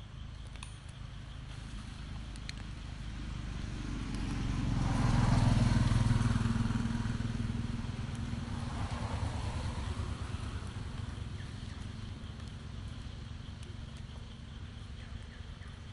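A motor vehicle passing by: its engine grows louder over a few seconds, peaks about five to seven seconds in, then fades away.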